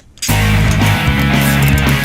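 Loud background rock music with guitar, starting suddenly about a quarter second in.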